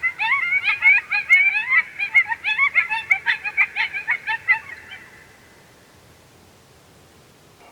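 A rapid run of high, warbling animal cries, several a second, that stops about five seconds in.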